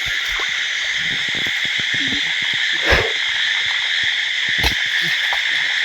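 Steady chorus of night insects, a continuous high-pitched buzz, with two short thumps about three seconds and nearly five seconds in.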